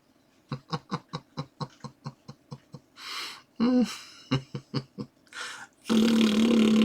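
A person laughing in a quick run of short bursts, with breathy gasps between. Music starts near the end.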